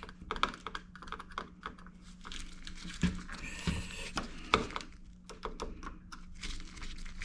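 Irregular light clicks and taps of hand work on a wall light switch and its small plastic and metal parts, with a few louder knocks near the middle, over a faint steady low hum.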